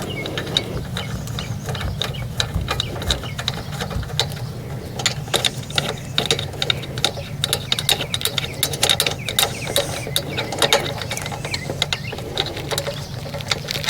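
Hand ratchet wrench clicking in quick runs as fasteners are worked loose.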